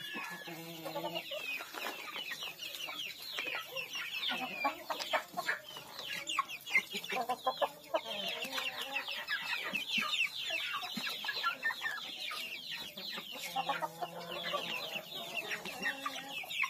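A group of young kampung (Indonesian native) chickens peeping and clucking continuously, a dense run of short chirps that fall in pitch, with a few lower clucks mixed in.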